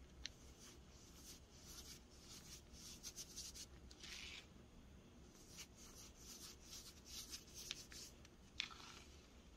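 Hands squeezing and rubbing soft dyed baking soda powder: a faint, irregular crunching and rubbing in short spells, with a sharp crackle just after the start and a louder one near the end.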